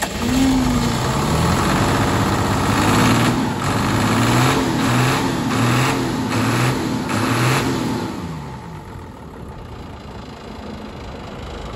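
Diesel engine of a 1987 Mitsubishi Fuso truck, just started, revved up and down several times, then dropping to a quieter idle about eight seconds in.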